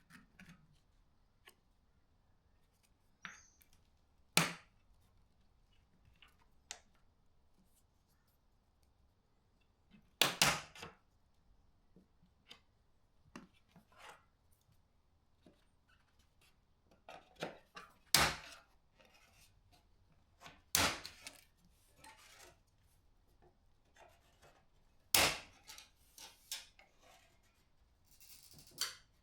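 Clips of a car's roof gutter moulding being pried out with plastic trim removal tools: a sharp snap each time a clip lets go, about five loud ones a few seconds apart, with smaller clicks and scrapes of the tool between.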